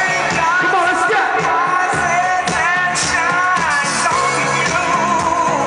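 Song played by a DJ, loud and continuous: a sung vocal over a steady beat.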